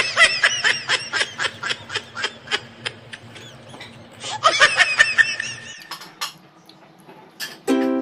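Laughing sound effect: rapid high-pitched bursts of laughter in two runs, the second one shorter, then a lull. Plucked ukulele-like music comes in just before the end.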